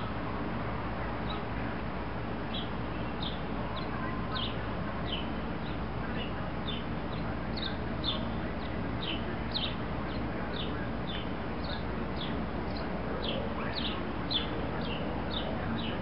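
A bird chirping over and over, short high notes that slide downward, about two a second, above a steady low background rumble. A few faint clicks are heard now and then.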